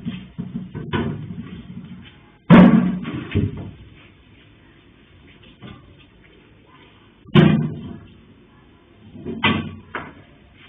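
Three heavy thumps, the first about two and a half seconds in, the next about five seconds later and the last two seconds after that, each dying away within about a second.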